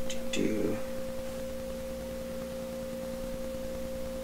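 A steady electrical whine: one unchanging pitched tone with a fainter, lower tone beneath it. A brief faint sound about half a second in.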